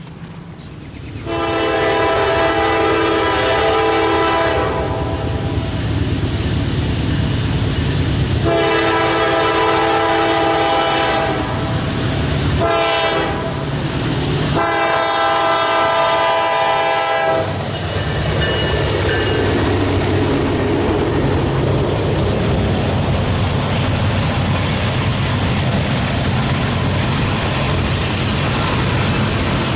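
Diesel freight locomotive horn sounding two long blasts, a short one and a final long one, the grade-crossing signal. The locomotives and a string of loaded oil tank cars then rumble and clack steadily past.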